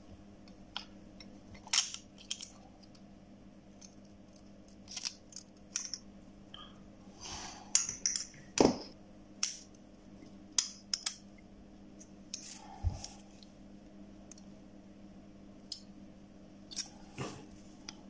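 Metal tweezers and fingertips clicking and tapping on an open smartphone's circuit board and frame: scattered sharp little clicks, some in quick runs, over a faint steady hum.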